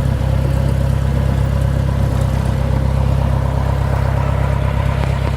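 Cessna 172's piston engine and propeller running steadily, a loud, even low drone heard inside the cabin.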